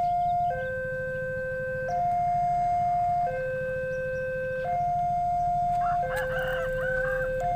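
Electronic two-tone warning alarm sounding a steady hi-lo cycle, each tone held about a second and a half. A rooster crows over it about six seconds in.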